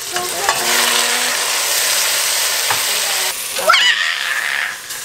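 Raw beef chunks sizzling as they are tipped into a hot stainless steel pot of frying onions and bean paste to be seared. The hiss jumps up about half a second in and runs steady, with a couple of light knocks of utensils on the pot.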